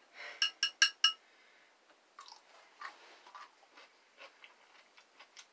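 A metal fork clinks sharply against a glass pickle jar about four times in quick succession within the first second. Then a dill pickle is bitten and chewed, with faint irregular crunches.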